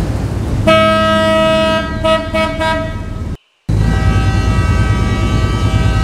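NY Waterway ferry's ship horn blasting. One long blast breaks into a few short toots. Then, after a brief cut, a second long blast is held over a low rumble: the signal a ferry sounds as it leaves the pier.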